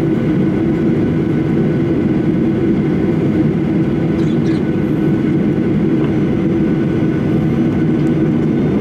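Steady low drone and rumble inside the cabin of a Boeing 737-800 on the ground before takeoff, even in level throughout, with a faint hum of steady tones over it.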